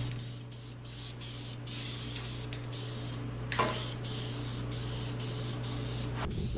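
Aerosol can of self-etching primer spraying in short bursts, a hiss broken by brief pauses, over a steady low hum.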